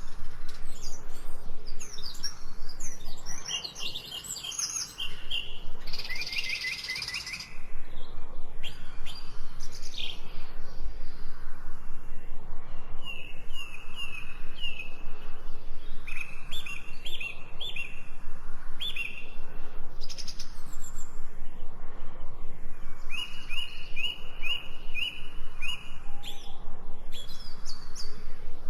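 Several wild birds singing and chirping, with short runs of four to six repeated whistled notes recurring throughout, over a steady pulsing at about four beats a second.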